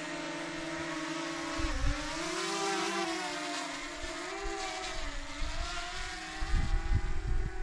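DJI Mini 2 SE quadcopter's propellers buzzing steadily, the pitch wavering up and down as the drone manoeuvres. Wind buffets the microphone in the last second or so.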